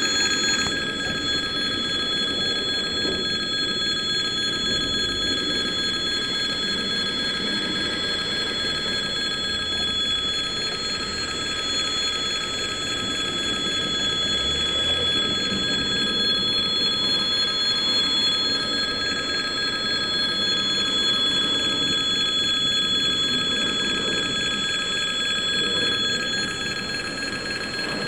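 Railway level-crossing warning bell ringing continuously with a steady metallic tone, over the low rumble of freight container wagons rolling slowly past.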